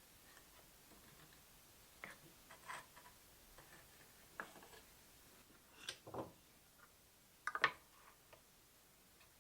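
Scattered light clicks and taps of hand tools and wood pieces being handled on a workbench, with a quick cluster of clicks about seven and a half seconds in.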